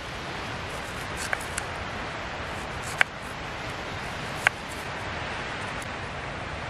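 Small knife slicing an onion on a wooden cutting board, each cut ending in a sharp tap of the blade on the board: a few taps, the loudest about a second and a half apart, over a steady hiss.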